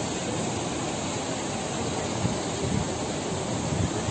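Floodwater rushing steadily out of a reservoir's opened crest gates, churning into white water in the channel below.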